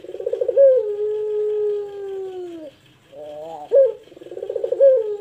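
Puter pelung (ringneck dove) cooing: a quick rolling stutter, then a long, drawn-out low coo held for about two seconds that slides down in pitch at its end. A second coo starts about three seconds in, with rising notes and the same rolling lead-in.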